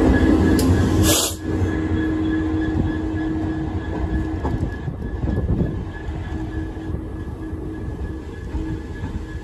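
Colas Rail Freight Class 66 diesel locomotive running light past and away along the platform, its engine sound fading as it pulls away. A short hiss about a second in.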